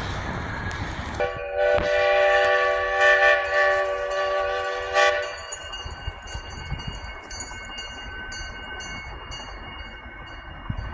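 Steam locomotive whistle blown once, a steady chord of several notes starting about a second in and lasting about four seconds.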